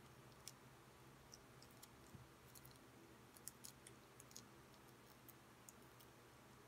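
Faint, irregular small metallic clicks and taps: a steel watch bracelet and a link-pin sizing tool being handled, over a low steady hum.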